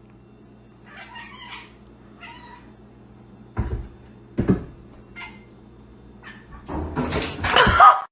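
A cat meowing a few short times over a steady low hum, with two short thumps in the middle and a louder burst of noise near the end that stops abruptly.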